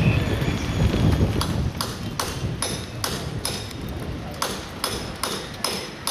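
Horse's hooves clip-clopping on a paved street at a steady walk, about two or three sharp beats a second with a slight ring, over a low rumble that fades after the first second or so.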